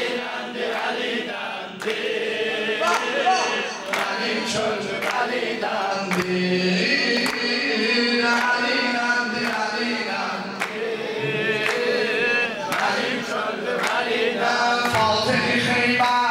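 Men singing a religious chant together, a lead voice on a microphone with the group joining in, over hand claps.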